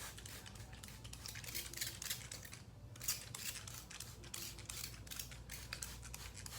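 Trigger spray bottle squirting water onto a curly wig's hair in quick repeated pumps, each a short hiss, with a brief pause about three seconds in.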